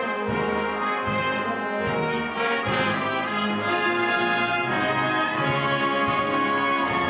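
Colliery brass band playing, sustained chords that move from note to note.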